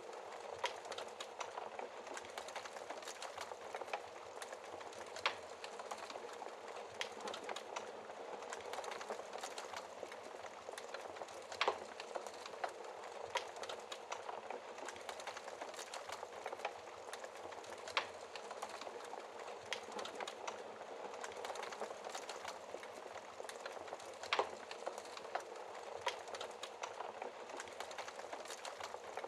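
Wood fire crackling in a fireplace: a steady hiss with frequent small crackles and a sharper pop about every six seconds.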